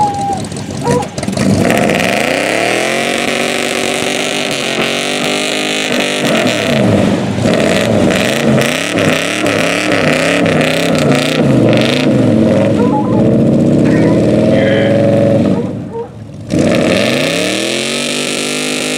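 Pickup truck engine revving hard under load as it tows a stuck pickup out of soft, muddy ground on a tow strap. The revs climb and fall again and again, drop off briefly about three-quarters of the way through, then climb once more.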